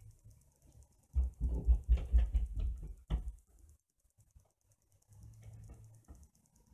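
Handling noise: a burst of rubbing, knocking and low bumps, ending with a sharp click about three seconds in, then only faint ticks and a low hum.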